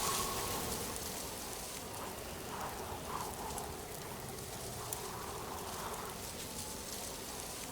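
Steady rain-like hiss, with soft repeated chirps over it from about two seconds in.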